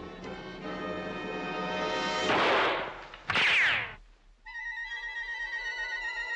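Cartoon orchestral score, broken about two seconds in by two loud noisy bursts of sound effects, a blast and then a crash with sweeping pitch. After a brief drop the music resumes on a high, slightly wavering held note.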